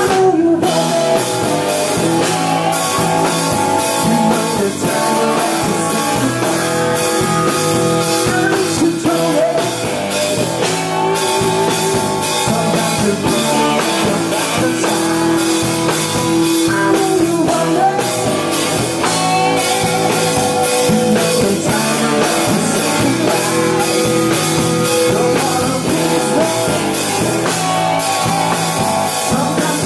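Rock band playing live at full volume: a steady drum-kit beat, amplified electric guitar and a sung lead vocal.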